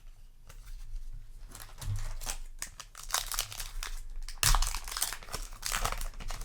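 Foil booster-pack wrapper crinkling and being torn open, an irregular crackle with a sharper, louder rip about four and a half seconds in.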